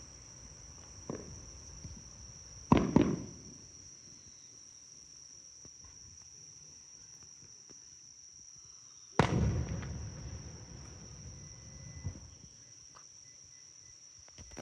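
Fireworks bursting: a faint bang about a second in, a loud double bang near three seconds, and the loudest bang about nine seconds in with a rumbling tail, then a smaller one near twelve seconds.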